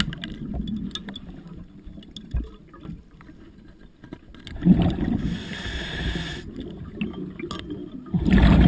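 A diver's exhaled breath bubbling out of the regulator underwater, heard as two rushing bursts, one about five seconds in and another near the end, with a quieter hiss between.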